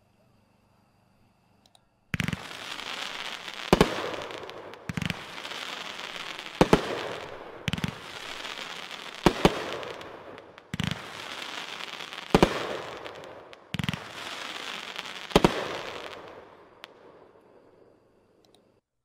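Winda Triple Threat 500-gram consumer firework cake firing: about ten shots, each with a low launch thump, several with a sharp report, and a crackling spray between them, fading into dying crackle near the end.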